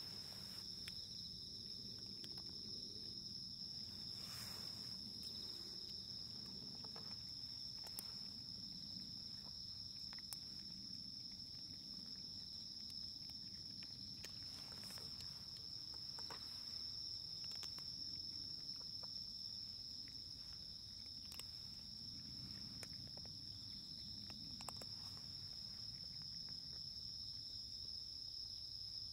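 Insects trilling steadily in one continuous high-pitched chorus, with a few faint scattered clicks.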